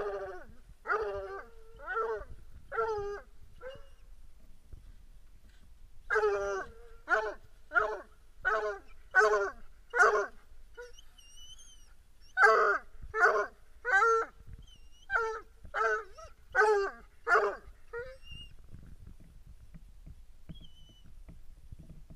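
A hound barking in three runs of short, repeated barks, about one to two a second, with a pause of a couple of seconds between runs. It falls quiet for the last few seconds.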